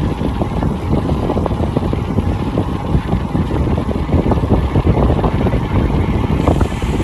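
Wind buffeting the microphone of a camera riding along on a moving bicycle: a loud, rough, rumbling rush with irregular crackles.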